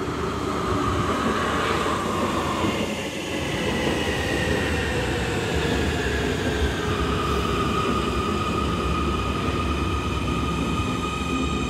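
Munich U-Bahn train pulling into an underground station, with wheels rumbling on the track. Its electric drive whines in a falling pitch, then settles into a steady high whine as the train runs along the platform.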